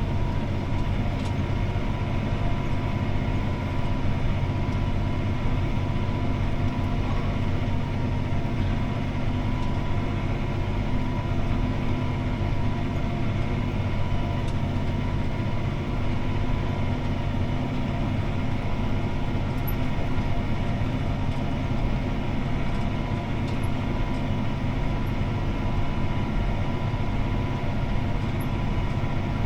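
CLAAS ARION 650 tractor's six-cylinder diesel engine running steadily under load while pulling a disc harrow, heard from inside the cab as an even drone with a steady whine over a low hum.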